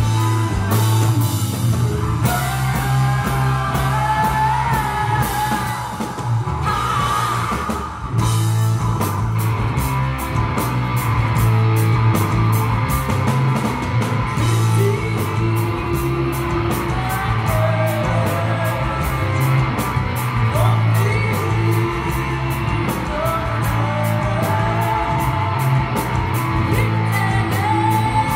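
Live rock band playing: a woman singing over electric guitar, bass, keyboard and a drum kit, with a steady cymbal beat.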